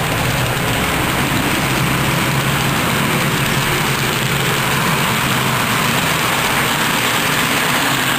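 HO scale model freight cars rolling past on the track: a steady rolling rumble with a low hum underneath.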